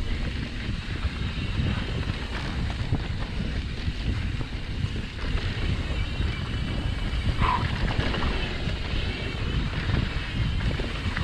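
Wind buffeting the microphone over the steady rumble of a mountain bike's tyres and frame on a dirt singletrack while riding. There is one brief high squeak about two-thirds of the way in.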